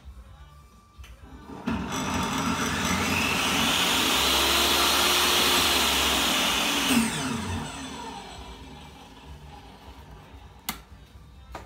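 DeWALT DWE7492 table saw motor and blade, fitted with a soft starter, switched on about two seconds in. It builds up over a couple of seconds rather than with a jolt, then runs steadily. It is switched off and winds down with a falling whine, and a sharp click comes near the end.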